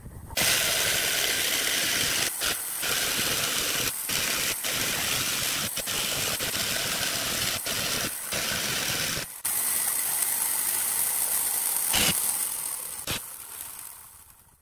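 Electric jigsaw running, its blade cutting a curve through a wooden board. The sound stops briefly about nine seconds in, then resumes and fades out near the end.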